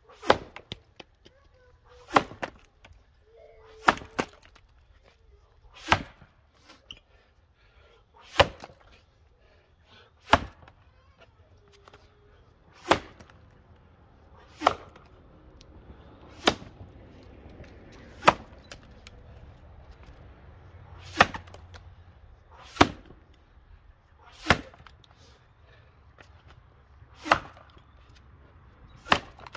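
Axe blows chopping into a 19-inch log of wet white pine in an underhand chop, about fifteen sharp strikes evenly paced at roughly one every two seconds.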